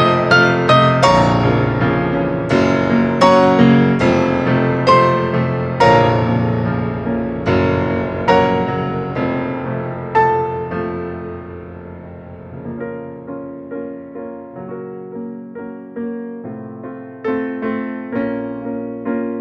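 Synthesizer playing a melody with chords in a piano-like voice, each note struck and fading away. The playing softens about halfway through and grows louder again near the end.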